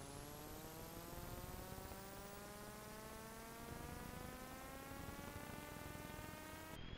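Faint electronic buzz: a stack of tones rising slowly and steadily in pitch over a hiss, dropping suddenly to a lower pitch near the end and starting to rise again.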